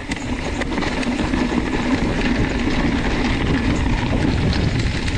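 Mountain bike riding down a rough trail, picked up by a GoPro: a steady rush of wind on the microphone with many small rattles and knocks from the tyres and bike over rocks and roots.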